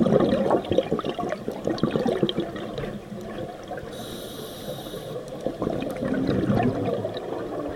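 Scuba diver breathing through a regulator, heard underwater: a burst of exhaled bubbles gurgling, a quieter stretch with a short hiss of inhalation about four seconds in, then bubbles again from about six seconds.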